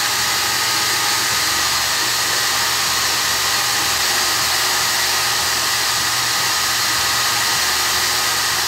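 Bosch GWS 9-125 S angle grinder running steadily at speed with a sanding disc on a soft backing pad. A metal bolt is held against the spinning disc and ground.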